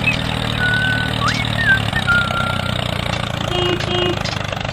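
Tractor engine idling steadily, with a few whistled chirps over it in the first two seconds and two short beeps about three and a half seconds in.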